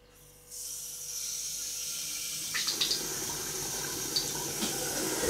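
Kitchen tap turned on about half a second in: water runs through a dishwasher inlet hose fitted to the tap and pours from the hose end into a stainless steel sink. It is a steady hiss of running water that grows fuller about two and a half seconds in.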